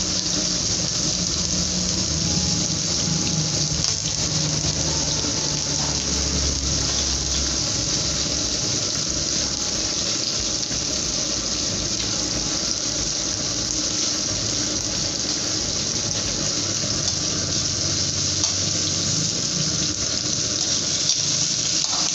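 Whole shrimp sizzling in a metal wok: a steady, even hiss.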